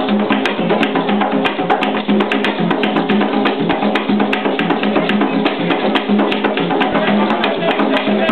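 An ensemble of tall hand drums played with bare hands in a fast, dense rhythm, sharp slaps coming several times a second over lower drum tones.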